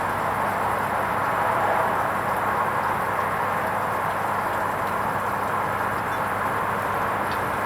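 Hoover Vision HVP16 front-loading washing machine running its wool rinse programme: a steady, even noise with a low hum underneath.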